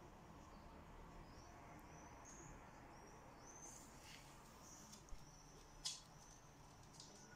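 Near silence: quiet room tone with faint high chirps and two brief sharp clicks about five and six seconds in.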